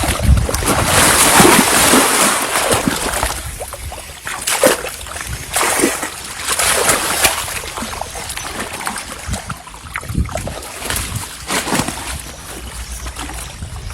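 Water splashing hard as a large hooked river fish thrashes at the surface. The splashing is heaviest in the first few seconds, then comes in separate sharp splashes.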